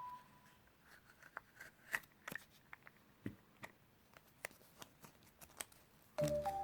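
Faint crinkling and scattered sharp clicks from a chocolate surprise egg being handled and unwrapped, its foil and plastic toy capsule rustling and snapping.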